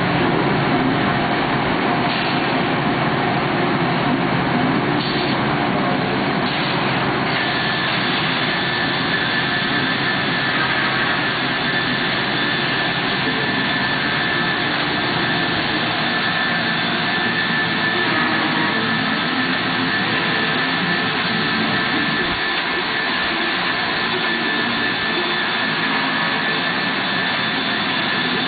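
Biesse Skipper 100 CNC panel machine running, a steady loud machine noise; a high steady whine sets in about seven seconds in and holds.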